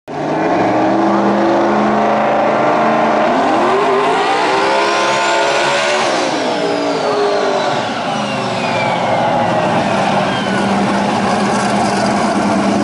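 Mustang drag car's engine during a burnout: running at steady revs, then revving up to a peak about six seconds in and falling back. A high whine climbs with the revs, then slides down as they drop.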